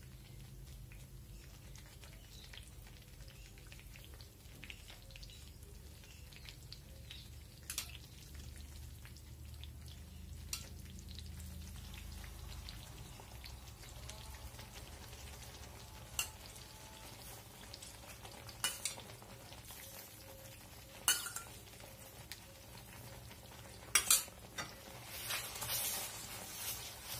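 Gram flour roasted in ghee sizzling faintly and steadily in a steel pan, having just had saffron milk added to it. A metal spoon stirring it clicks against the pan now and then and scrapes more busily near the end.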